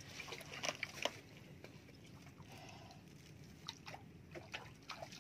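Water sloshing and dripping around a small boat, with scattered short splashes, the two loudest about a second in.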